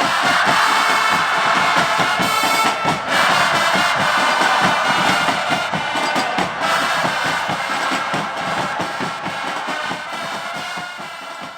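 Football supporters' section chanting together in a stadium over a steady beat of drums, fading away toward the end.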